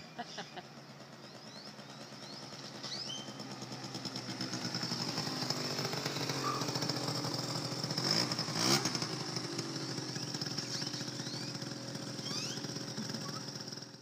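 2003 Yamaha Zuma 50 scooter's two-stroke single-cylinder engine running as the scooter rides up and passes close by, growing louder to a peak about eight to nine seconds in, where its pitch drops as it goes past.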